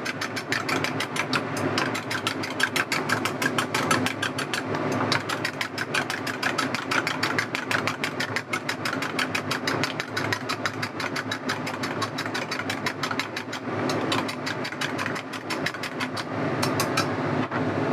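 Eggs being beaten in a bowl for egg-drop soup: a rapid, even clicking of the utensil against the bowl, with a short pause near the end, over a steady low hum.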